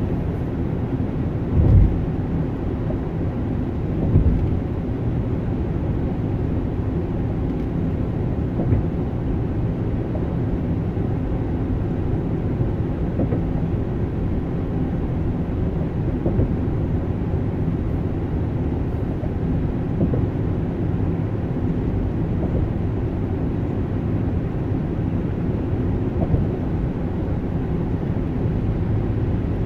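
Steady low rumble of road and engine noise inside a car cruising on a freeway, with a few brief low thumps, the loudest about two seconds in and another about four seconds in.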